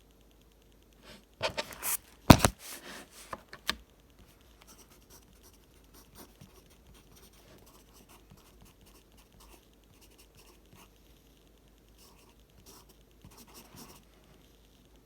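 Pencil writing on paper: a burst of loud, quick strokes and one heavier thump between about one and four seconds in, then light scratching strokes, a little louder again near the end.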